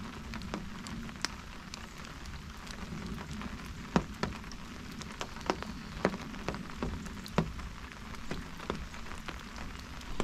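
Steady rain falling, with irregular sharp taps of drops striking a fishing umbrella overhead, the loudest about four seconds in.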